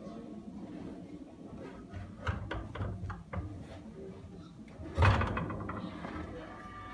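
Wooden peg puzzle boards clattering against a wire puzzle rack and shelf as one is pulled out: a series of light knocks, then one loud knock about five seconds in.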